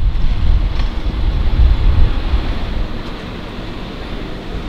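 Wind buffeting the microphone: a gusty low rumble with a rushing hiss, easing about three seconds in to a steadier, quieter rushing noise.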